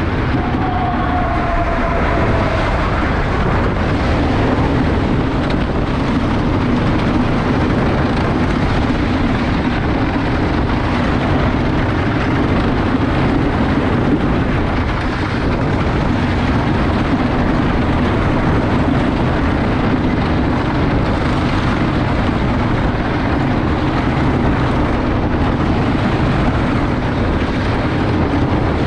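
Heard from on board a GCI junior wooden roller coaster, Invadr: the train runs along its wooden track with a steady, loud rumble. A short falling squeal comes about a second in.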